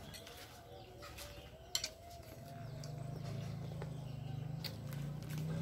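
Eating close to a clip-on microphone: a metal spoon clinks and scrapes against a ceramic bowl of rujak, with a sharp clink about two seconds in, amid chewing. A low hum sets in about halfway.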